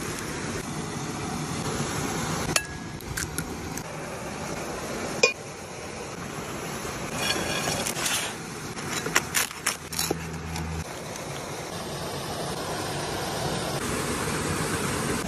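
Steady rush of a small waterfall and creek, with scattered sharp knocks and clinks from food being cut and handled; the loudest knock comes about five seconds in.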